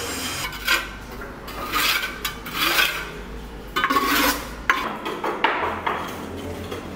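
Irregular scraping and rubbing strokes with clinks, as basins and bowls are scraped and handled, and a sharp knock about two-thirds of the way through.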